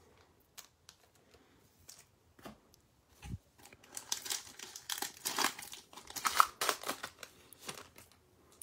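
Foil wrapper of a Prizm basketball trading-card pack crinkling and tearing as it is ripped open by hand, loudest about two thirds of the way in. A few light clicks come before it.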